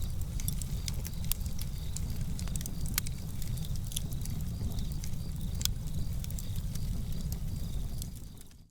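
Foley campfire: a cloth rubbed to make a steady low rumble of flames, with scattered sharp crackles and snaps from dry leaves and twigs being broken. It fades out near the end.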